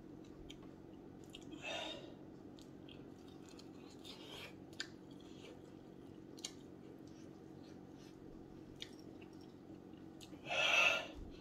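A person chewing chicken wings, with small wet clicks and smacks, and breathing noisily three times, loudest near the end.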